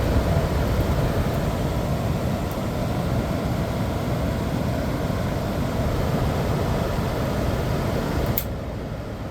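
Fan motor of a 1985 White Westinghouse window air conditioner running on its high setting, its blower and plastic condenser fan moving air with a steady rush. The motor itself makes no noise despite some free play in it. A click about eight seconds in, after which it runs quieter.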